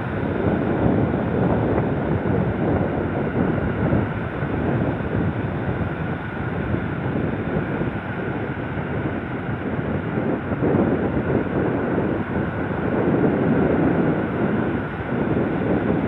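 Strong wind buffeting the microphone over the steady wash of breaking ocean surf, rising and falling in gusts.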